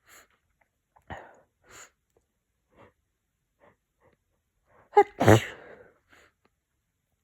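A person with a head cold sneezing during a sneezing fit. One loud sneeze comes about five seconds in, led by a short voiced intake of breath. A few faint breathy sounds come before it.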